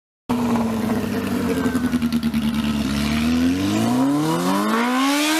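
Honda CB400 inline-four motorcycle engine through an aftermarket exhaust. It cuts in abruptly, holds a steady pulsing note for a couple of seconds, then accelerates hard, the revs climbing smoothly for about two and a half seconds.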